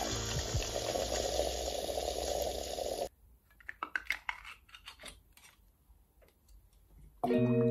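Bosch coffee machine running as it pours coffee into a mug, a steady hiss and hum that cuts off abruptly about three seconds in. Then come faint scattered clicks and crinkles of fingers handling a small item, and guitar music starts near the end.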